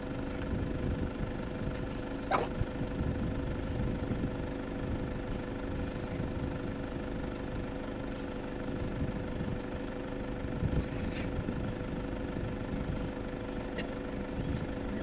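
Vehicle engine idling steadily with a constant low hum, and a few short sharp sounds over it.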